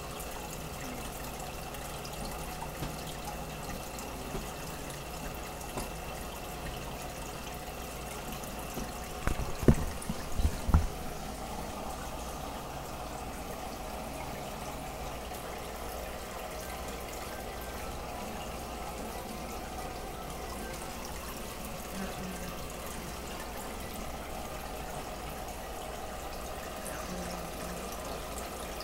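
Aquarium water circulating, a steady trickling and bubbling with a low hum underneath. A few sharp knocks come close together about ten seconds in.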